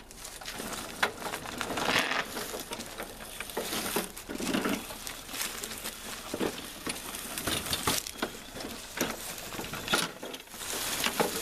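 Scrap items being unloaded and moved by hand: irregular knocks, rattles and scrapes, with a few sharper knocks.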